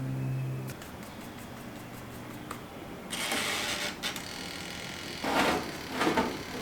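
A steady appliance hum stops suddenly under a second in, followed by a run of small clicks and then three bursts of rustling or clattering handling noise.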